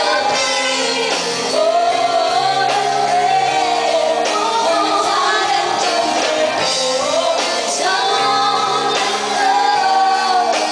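Live pop-rock band playing: women singing long held, swooping melody lines over electric guitar, bass and drums.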